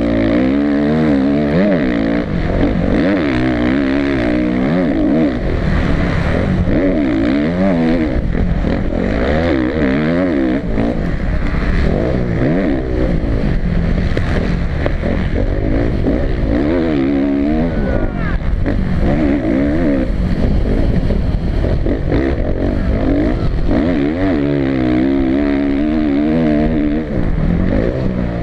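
Onboard sound of a Suzuki motocross bike's engine ridden at race pace, the revs climbing and dropping again every second or two, with a steady rush of wind over the camera.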